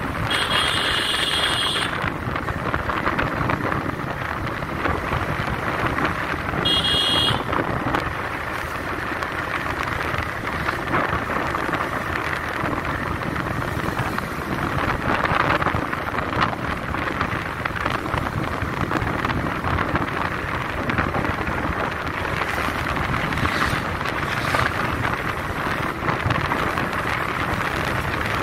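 TVS Raider 125's single-cylinder engine and tyres running at speed, largely covered by a steady rush of wind over the microphone. Two short high-pitched tones cut through, one about a second in and one about seven seconds in.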